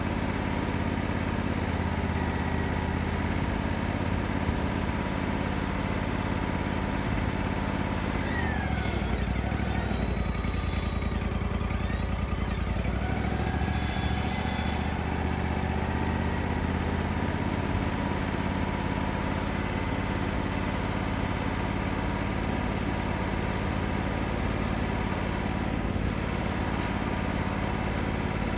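Portable sawmill's engine running steadily, with a higher whine that slides up and down in pitch for several seconds midway.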